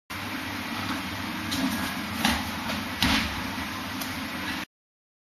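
A gymnast's footfalls and landing thumps on the floor during a cartwheel-flip attempt: a few sharp thumps, the loudest two a little after two seconds and about three seconds in, over a steady background hiss.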